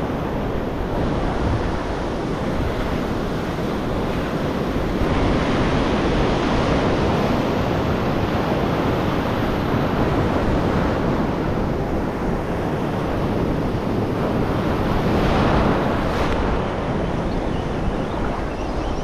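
Sea surf washing and breaking against shore rocks in a steady rush, swelling louder twice, with wind buffeting the microphone.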